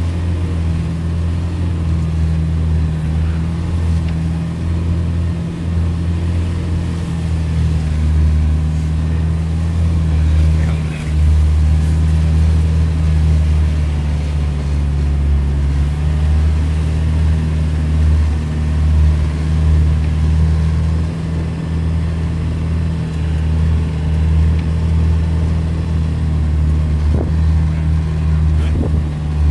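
Vehicle engine running at a steady speed, a continuous low drone.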